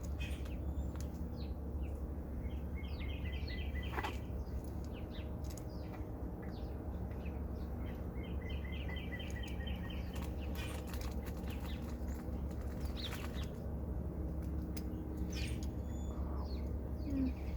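Birds chirping, with a short rapid trill about three seconds in and another about nine seconds in, over a steady low hum.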